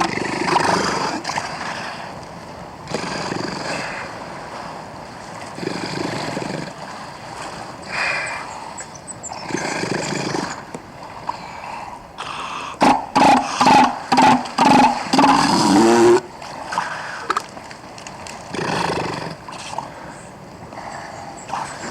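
Adult northern elephant seal belching, recorded close up: a series of separate deep, throaty calls of about a second each. Near the middle comes a louder run of about seven quick pulses, roughly two a second, before the single calls resume.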